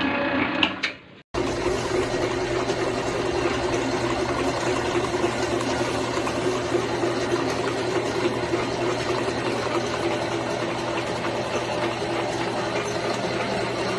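Commercial planetary stand mixer running, its electric motor and gearhead turning the beater through batter in a steel bowl: an even machine hum that starts abruptly about a second in and holds steady.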